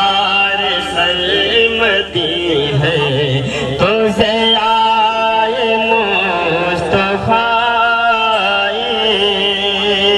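A man singing an Urdu naat into a microphone in a chanting melody, with long wavering held notes over a steady drone.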